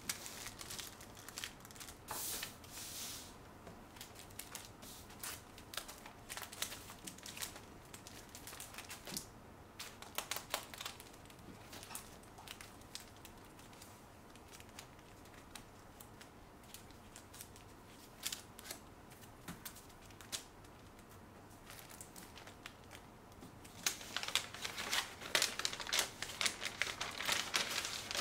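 Clear plastic sleeves and paper packets crinkling and rustling as they are handled and set down on a wooden desk, in scattered short rustles with light taps. The rustling becomes busier and louder near the end.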